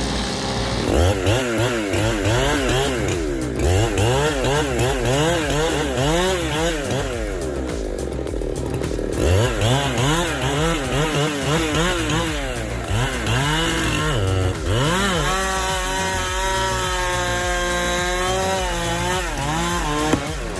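Chainsaw engine revved up and down over and over in quick sweeps, as in cutting, then held steady at high revs for the last few seconds.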